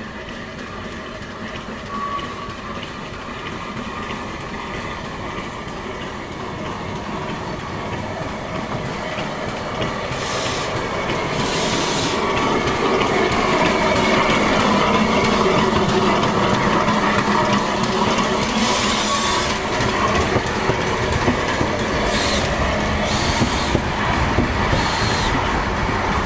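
Narrow-gauge steam locomotive Russell, a Hunslet 2-6-2 tank engine, running past with its train of carriages, growing louder as it approaches. There are bursts of steam hiss twice in the middle, and clicking from the carriage wheels near the end.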